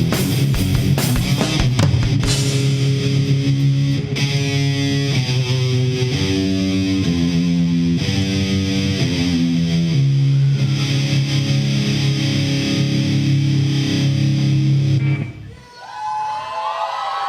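Live rock band playing with heavily distorted electric guitar, bass and drums, moving through a run of held chords. About fifteen seconds in the band stops abruptly on the last chord, and the crowd whoops and cheers.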